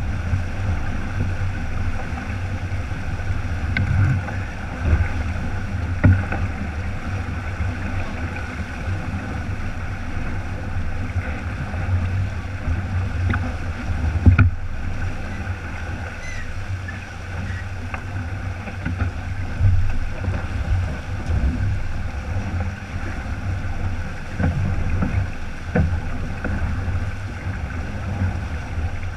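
Sailboat under sail, heeled and moving fast: a steady rush of water along the hull and spray from the bow wave, with a low rumble of wind on the microphone. A few sharp thumps stand out, the loudest about halfway through.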